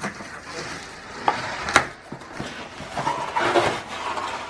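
Flat-pack dining chair parts and their packaging being handled: two sharp knocks a little under half a second apart, then scraping and rustling with brief squeaks.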